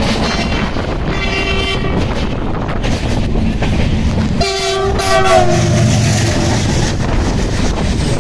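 Train horn sounding twice, a short blast about a second in and a longer one near the middle whose pitch drops as it fades, over the steady rumble of a moving train heard from on board.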